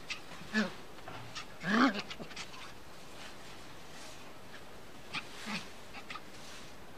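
A small puppy gives a few short yips while playing, the loudest about two seconds in, with a rise and fall in pitch, and two more brief ones around five seconds in.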